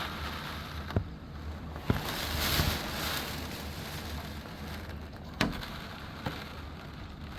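Hurricane-force wind and heavy rain outside the house, swelling in a gust about two to three seconds in. Four sharp knocks cut through it, the loudest a little past halfway.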